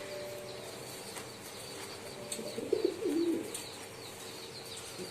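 Domestic pigeons cooing, with one wavering coo about two and a half seconds in, and faint high chirps of other birds.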